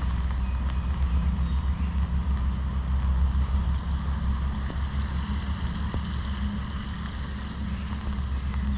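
Steady rain hissing in a forest, with a fluctuating low rumble of wind on the microphone underneath.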